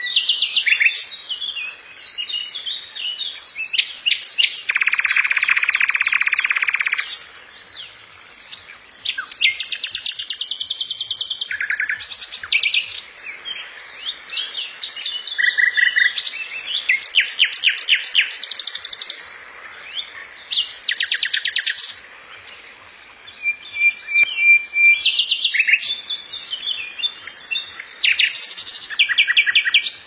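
Common nightingale singing: a run of varied phrases built from fast repeated notes and rapid trills, with short pauses between them. About five seconds in comes a low buzzy rattle lasting about two seconds, and a short held whistle comes past the middle.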